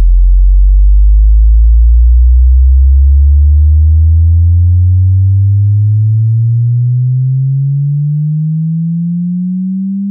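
Bass sine-wave sweep test tone, a pure deep tone gliding steadily upward in pitch from low to high. It is loud and grows gradually quieter over the second half.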